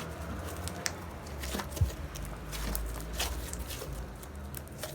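Glittered clear slime being squeezed and worked by hand: scattered small clicks and squishes over a low steady hum.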